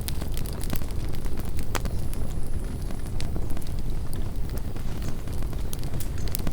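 Campfire crackling, with many sharp irregular pops over a steady low rumble of wind on the microphone.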